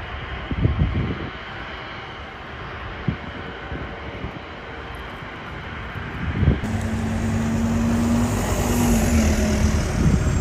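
Helicopter flying overhead: a steady low rumble of rotor and engine, with a few thumps of wind on the microphone. About six and a half seconds in the sound cuts to road traffic with a vehicle engine humming steadily.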